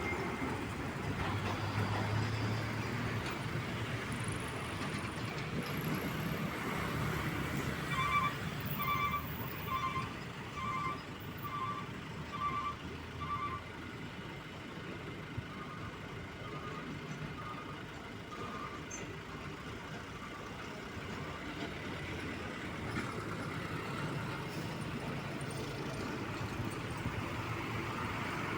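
Truck traffic running steadily, with a reversing alarm giving a string of short, evenly spaced beeps, a little more than one a second, starting about eight seconds in; fainter beeps follow for a few seconds more.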